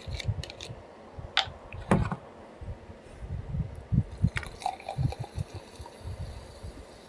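Carbonated soda poured from a plastic bottle into a glass mug, starting about halfway through, with a faint fizzing hiss as the glass fills. Before that, a few low knocks and clicks as the bottle and mug are handled.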